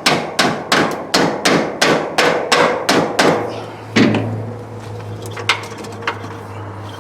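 Rapid hammer strikes, about three a second with a ringing tail, stop a little over three seconds in. A single heavy thump follows, then a steady low hum with a few light clicks.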